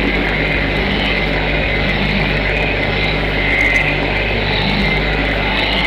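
Electric variable-speed buffer running steadily at speed setting 4, its pad working polish into a fiberglass gel-coat surface. It makes a loud, even motor hum with a higher whir over it.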